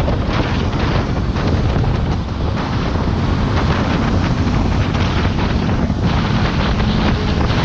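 Steady wind rush buffeting the microphone on a moving motorcycle, with the rumble of the ride underneath.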